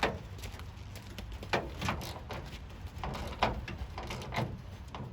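A series of irregular knocks and clunks, about half a dozen in five seconds, the loudest about three and a half seconds in.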